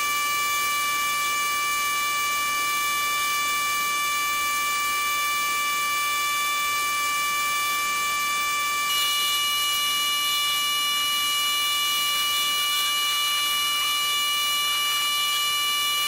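Gas pressure washer running with a rotary surface cleaner on concrete: a steady high-pitched whine over the hiss of the spray, with no change in pitch.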